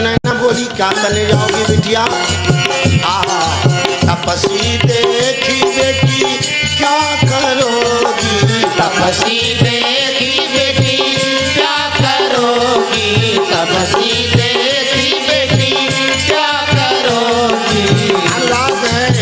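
Hindi devotional bhajan: a male voice sings over a steady hand-drum rhythm with other accompaniment.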